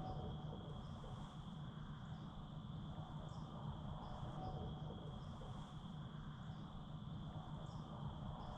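Insect chorus: a steady high-pitched trill with short chirps repeating about every half second, over a low steady rumble.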